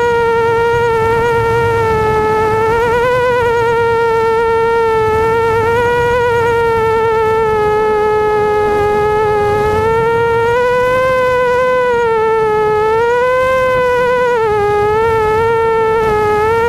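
FPV racing quadcopter (ImmersionRC Vortex) motors and propellers whining in flight: a steady buzzing tone whose pitch wavers up and down as the throttle changes.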